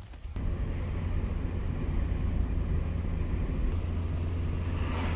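Steady low rumble of a moving vehicle, even in level, starting abruptly just after the start.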